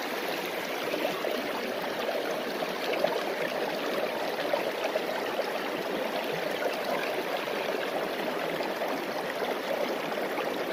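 River water rushing steadily into and through a small sluice box, flowing over its riffles and matting.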